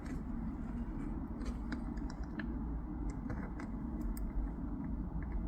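Light scattered clicks and plastic handling as a USB power cable is plugged into a dashcam, over a steady low rumble.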